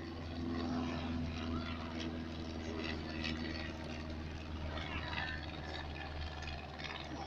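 Piston engine of a small high-wing L-Bird liaison plane droning as it flies past on a low photo pass, a steady tone that fades about halfway through. Spectators' voices can be heard behind it.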